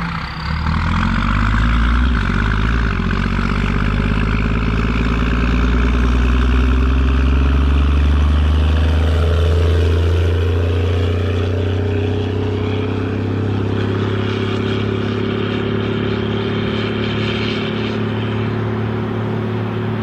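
Case 2294 tractor's six-cylinder turbo diesel pulling a loaded forage wagon, under heavy load and blowing black smoke. The engine note climbs slowly as it accelerates about halfway through, then runs steady.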